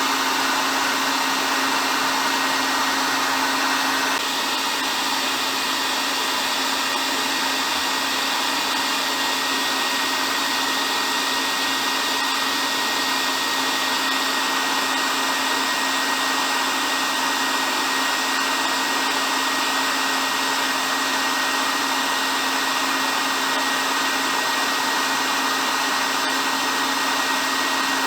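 Hair dryer running steadily: an even rush of air with a thin, high, steady whine over it. It gets slightly quieter about four seconds in.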